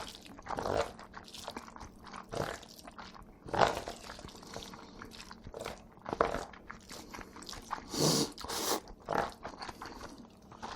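Close-up eating sounds of jjajangmyeon and jjamppong: irregular chewing and biting, with a few louder mouthfuls about three and a half seconds in and near the end.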